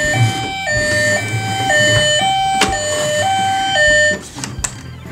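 Toy ambulance's electronic two-tone hi-lo siren, alternating between a higher and a lower note about every half second. It stops about four seconds in, and a few light clicks follow.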